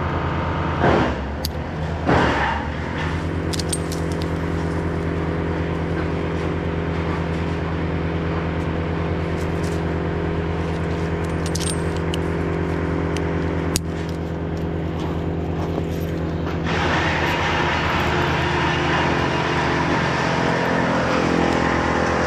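A steady engine drone runs throughout, with a few sharp metal clinks of carabiners and pulley hardware as the climbing rope is handled, mostly in the first couple of seconds and once more about two-thirds through. A rushing hiss grows louder for the last few seconds.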